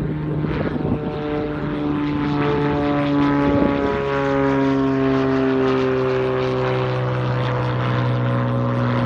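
Low-wing, fixed-gear trainer aircraft's propeller engine running steadily. Its note drops in pitch about four seconds in and then falls slowly.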